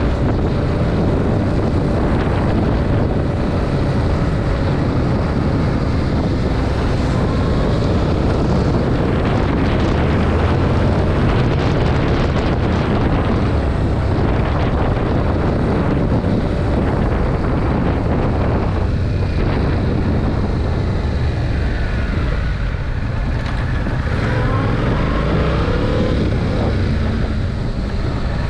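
Yamaha MT-07's 689 cc parallel-twin engine running through its stock exhaust while the bike is ridden, with wind rushing over the microphone. The engine note rises and falls in pitch in the second half.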